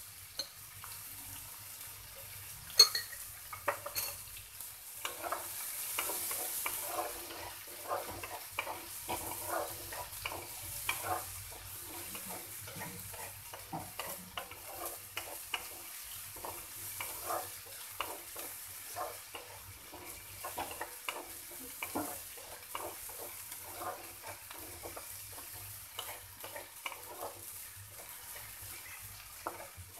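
Chopped onions and tempering spices sizzling in oil in a kadai while a wooden spatula stirs and scrapes them around the pan in a steady run of short strokes, the onions being fried towards brown. A sharp knock sounds about three seconds in.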